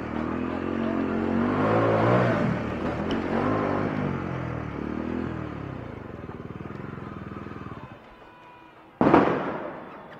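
Bajaj Dominar 400's single-cylinder engine running under the rider, its pitch rising and falling with the throttle, then dropping away about eight seconds in. About nine seconds in there is a sudden loud burst that dies away within a second.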